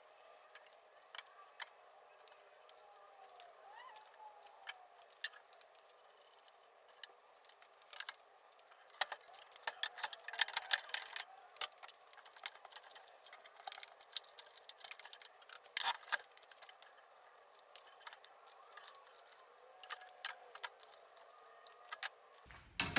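Scattered light clicks, taps and knocks of hands and tools working on kitchen cabinets and their mounting hardware, busiest in the middle, with a thin, tinny sound and no bass.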